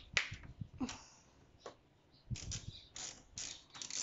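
Hands working the fasteners of a motorcycle's stock plastic radiator guard: irregular light clicks and scrapes of a tool and plastic parts, which pause for about a second midway and then start again.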